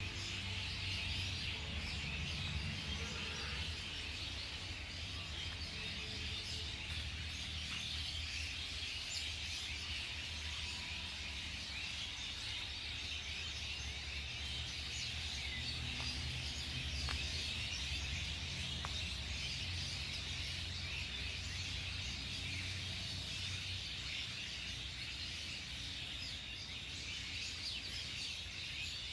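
Outdoor ambience: birds chirping over a steady high insect-like hiss and a low rumble.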